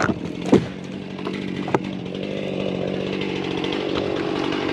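Chainsaw engine idling steadily, with a couple of sharp knocks in the first two seconds.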